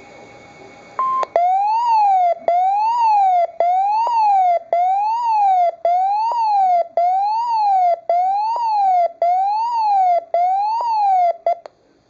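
Midland WR-11 weather radio sounding its siren-style alarm: a short beep, then a loud tone rising and falling about once a second for roughly ten seconds, cutting off abruptly. It is the alert for a received severe thunderstorm warning.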